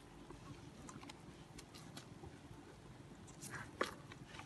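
Spoon stirring flour and liquid into a batter in a stainless steel bowl: faint soft scraping with light clicks, and a couple of louder clicks near the end.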